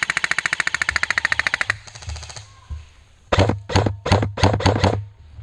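Airsoft gun firing a rapid full-auto burst of about two seconds, a dozen or so shots a second, followed about three seconds in by six quick dull thumps.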